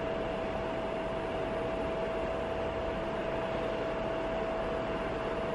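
Cooling fan of a 19-LED wash moving head light running steadily: an even hiss with a thin, constant whine through it. The uploader finds the fan not really quiet.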